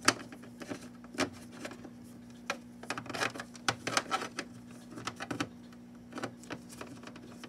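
Small plastic toy figures clicking and tapping against a plastic dollhouse floor as they are handled and moved, in irregular light clicks, over a steady hum.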